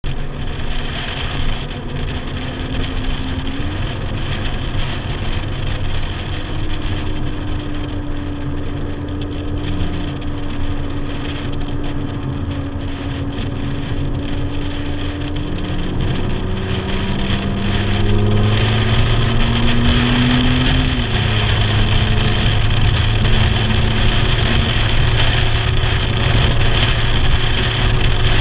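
Ferrari 458 Italia's 4.5-litre V8 running under way at moderate speed over a steady rush of wind and road noise. The engine note holds steady, drops in pitch about halfway through as with a gearchange, then climbs and drops again, growing louder in the last third.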